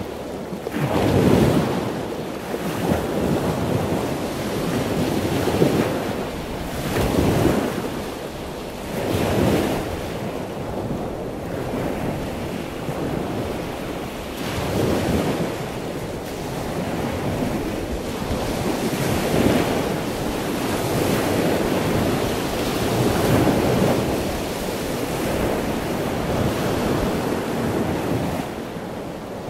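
Ocean surf and wind: an even rush of breaking waves that swells and eases every few seconds, with wind buffeting the microphone.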